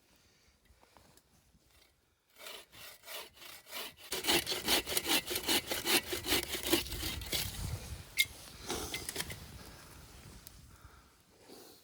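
Hand saw cutting through a piece of wood for firewood, in even back-and-forth strokes. The strokes start slowly about two seconds in, run at about three a second, and trail off into lighter scraping near the end.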